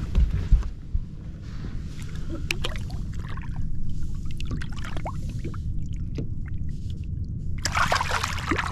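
Water sloshing and lapping at the side of a boat as a smallmouth bass is lowered by hand and released, with a couple of dull knocks at the start. Near the end comes a loud splash as the fish kicks away from the hand.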